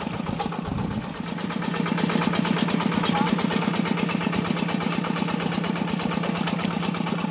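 Small engine running steadily with a fast, even chug, a little louder from about two seconds in; it is the motor pulling a seine net through a pond.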